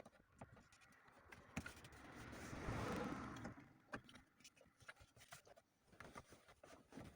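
Faint scattered clicks and knocks of hand tools and parts being handled, with a soft rushing noise that swells and fades over about two seconds in the middle.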